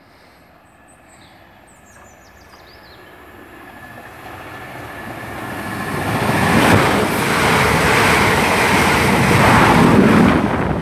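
Class 444 Desiro electric multiple unit approaching and passing through the station: the rush of wheels on rail grows steadily over the first six seconds or so, then stays loud as the train goes by.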